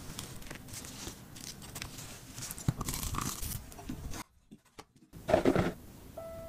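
Crisp-crusted baked cheese mochi ball torn open by hand, its crust crackling for a few seconds. After a short pause there is a louder crunch, and a single chime note begins just before the end.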